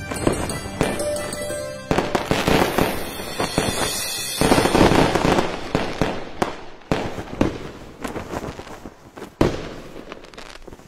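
Fireworks bursting and crackling over music. The bangs come thick about two seconds in, then thin out to scattered pops.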